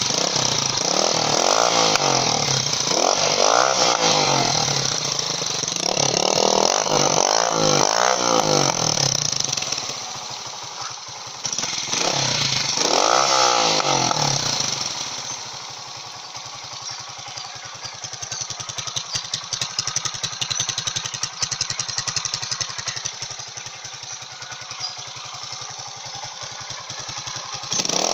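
Italika FT150S motorcycle's single-cylinder engine revved through an Akrapovič-copy exhaust with its silencer insert fitted, the pitch rising and falling about five times, then settling to a steady idle about halfway through. With the silencer in, it sounds almost like the stock exhaust.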